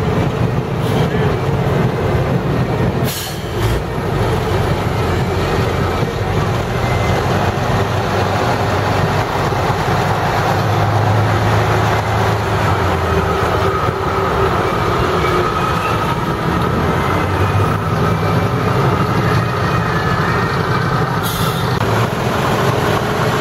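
A convoy of heavy WWII-era US Army trucks driving slowly past one after another, their engines running steadily, with the pitch shifting as each truck passes. A brief sharp knock comes about three seconds in and another near the end.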